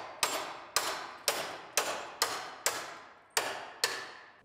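A hammer strikes the steel upper frame rail of a 2012 Lincoln MKT about eight times, roughly twice a second, and each blow rings and fades. The rail is held under tension by a frame-rack puller, and the hammering straightens it and relieves the stress in the metal.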